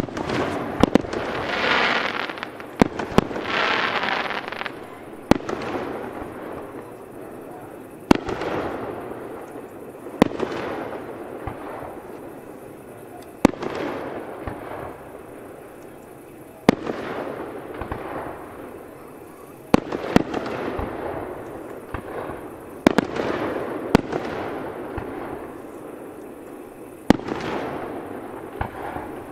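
Aerial fireworks going off one after another: sharp bangs every two to three seconds, each dying away in a rolling echo. A denser rush of noise fills the first few seconds.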